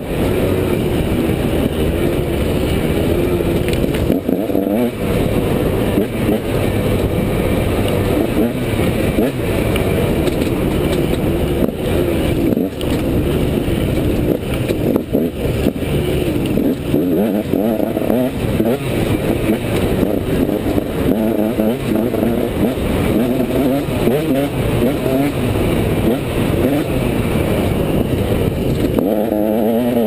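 Enduro dirt bike engine revving up and down with the throttle as it rides over a rocky trail, heard from a helmet-mounted camera, with frequent knocks as the bike bounces over the rocks.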